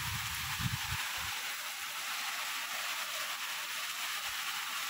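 Heavy rain pouring down, a steady even hiss, with a few low rumbles in the first second or so.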